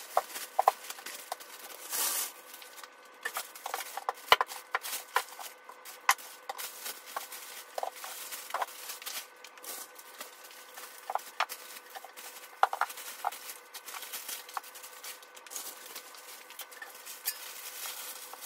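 Groceries being unpacked: paper shopping bags and plastic produce bags rustling and crinkling, with irregular knocks and clicks as bottles, jars and packages are set down on a wooden table.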